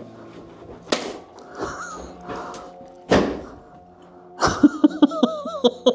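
Two loud, echoing bangs about two seconds apart, then a rapid string of sharp cracks from airsoft guns firing, over a droning haunt soundtrack.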